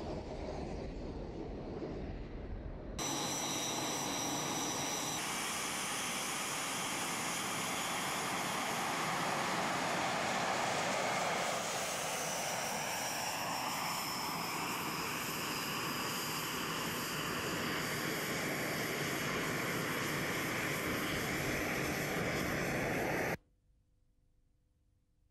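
BAE Hawk jet trainer's Adour turbofan running: a steady rushing jet noise with a high whine. The whine falls in pitch about halfway through. The sound jumps louder about three seconds in and cuts off suddenly near the end.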